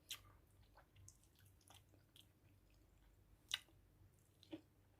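Faint chewing and mouth sounds of a person eating chicken feet adobo: a few soft, scattered smacks and clicks, the clearest about three and a half seconds in.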